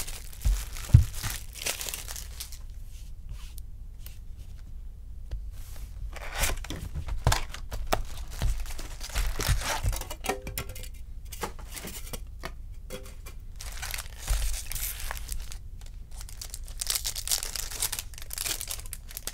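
Baseball card box and pack wrappers being handled, crinkled and torn open in several short ripping bursts, with a couple of sharp knocks about a second in.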